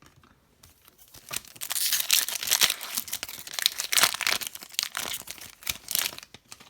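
Plastic wrapper of a hockey trading card pack being torn open and crinkled, a dense crackling from about a second in until just before the end.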